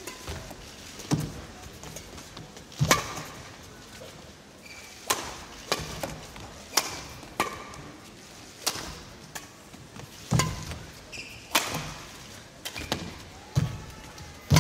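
Badminton rally: rackets striking the shuttlecock again and again in a quick back-and-forth, sharp hits about once a second at an uneven pace, with a few short high squeaks between them.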